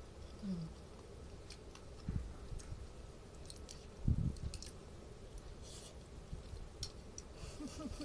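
A person chewing crunchy food, with scattered light clicks of a utensil on a plate. A dull thump about four seconds in is the loudest sound.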